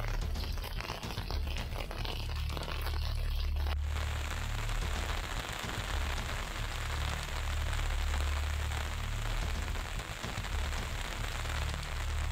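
Rain falling steadily. For the first few seconds it is a patter of separate drops, and after an abrupt change about four seconds in it is a denser, even hiss. A low rumble runs underneath throughout.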